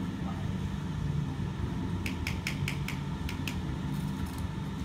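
Building-site noise during bricklaying: a steady low rumble, with a quick run of about seven sharp, ringing clinks starting about two seconds in.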